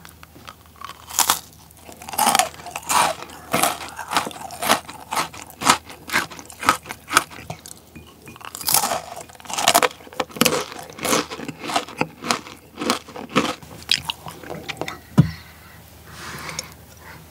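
Close-miked crunching and chewing of chocolate-coated Pepero biscuit sticks, a crisp crunch about every half second. About fifteen seconds in comes a single loud low thump, followed by softer sounds of drinking milk.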